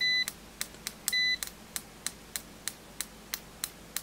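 Kaiweets ST600Y multimeter in continuity mode: its nickel-coated probe tips are tapped together about three or four times a second, each tap a sharp click. The meter's buzzer gives a short high beep only twice, at the start and about a second in. Most of the quick taps are too brief to set off the beep, which shows how fast the meter's continuity response is.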